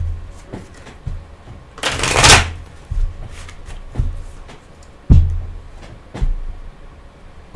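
A tarot deck being shuffled by hand, with a loud riffle of cards about two seconds in and short thumps about once a second.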